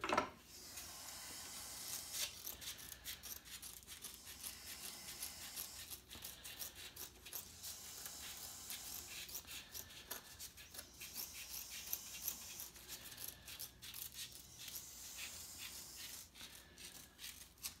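Scissors trimming 600-grit abrasive paper around the edge of a sharpening wheel: a long run of faint, irregular snips with paper rustling.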